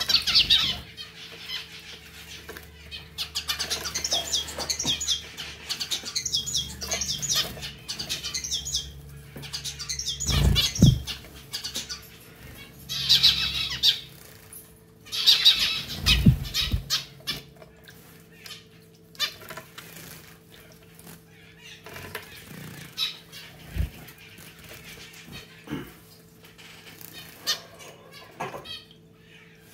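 Zebra finches bathing in a pet drinking fountain: wing flutters and water splashes, with bursts of high chirping calls that come and go. The fountain's pump hums steadily underneath.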